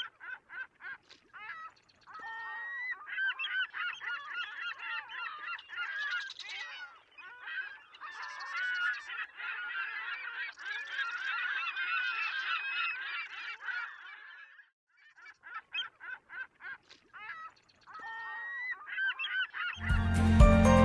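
A flock of geese honking, many calls overlapping through the middle and thinning to scattered calls toward the end.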